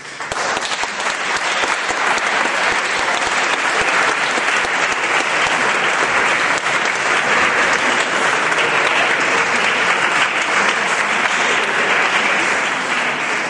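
Audience applauding, a steady round of clapping that tapers off near the end.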